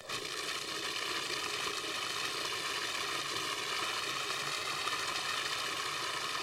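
Food processor motor switching on and running steadily, whirring through a thick blue cheese dressing to break it down further.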